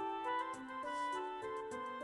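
Instrumental background music: a gentle melody of held notes changing every fraction of a second, over a light ticking beat.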